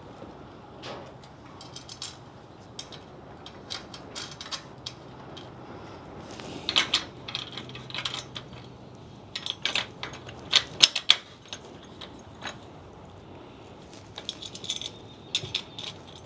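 Metal cart parts and hardware clinking and tapping irregularly as they are handled and fitted together by hand, with clusters of sharp clicks about seven seconds in, around ten seconds, and again near the end.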